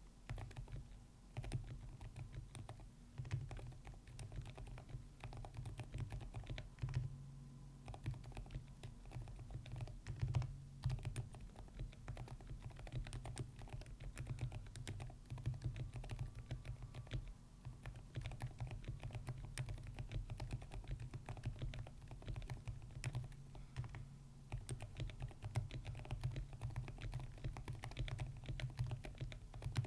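Continuous fast typing on a Cidoo Finalkey V65 mechanical keyboard with Gecko Silent Linear switches and a tape mod: a dense patter of keystrokes whose sound sits mostly low, with only brief short lulls.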